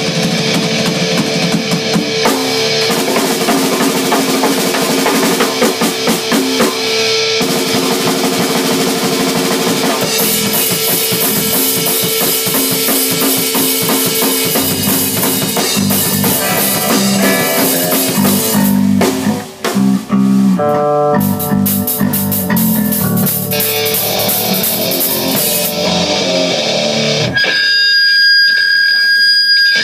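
Band playing heavy metal, with distorted drop-tuned electric guitar over a drum kit. Near the end the playing stops and a high, steady feedback howl from the guitar amp rings on.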